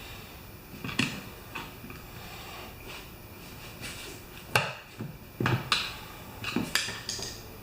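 Irregular metallic clanks, knocks and scrapes of a tire tool working against a steel rim on a manual tire changer, as a tire bead is levered onto the rim. The loudest knock comes about halfway through, with a quick run of clanks after it.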